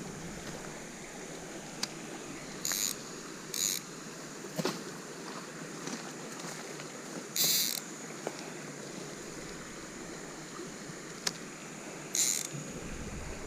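Outdoor creekside ambience: a steady hiss with a faint high whine, broken by four short high-pitched hissing bursts and a few light clicks.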